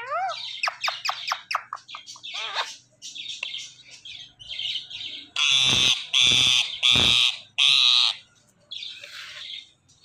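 Rose-ringed parakeets calling: quick chirps rising and falling in pitch, then four loud harsh squawks in a row about five to eight seconds in, and one softer call near the end.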